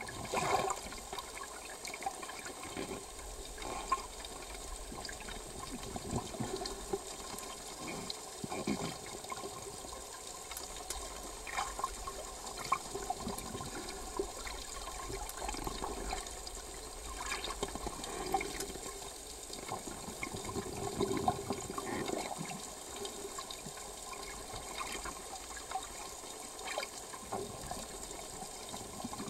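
Underwater sound picked up by a camera held below the surface: a steady water rush and gurgle, with irregular bumps and bubbling throughout.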